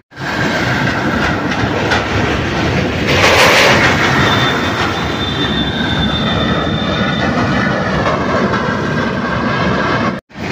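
Steel deck plates of a pontoon bridge rattling and clanking as a car drives over them. The noise is loud and continuous, with a thin high metallic squeal for a few seconds partway through.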